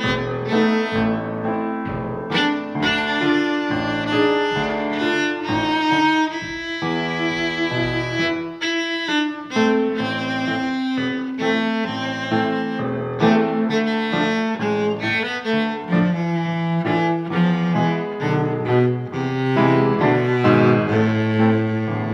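Instrumental background music of bowed strings, led by a cello, with some piano; a busy line of short notes that changes pitch often.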